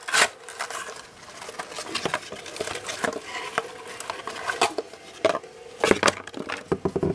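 Hands handling a plastic alarm clock and its cardboard packaging: irregular clicks, knocks and rustling as the clock is worked at against a cardboard backing that is held on by screws. A faint steady tone runs underneath.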